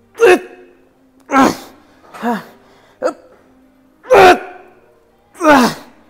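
A man's hard grunting exhalations, six in about six seconds, each one falling in pitch: the strain of pushing out reps of a gym lift.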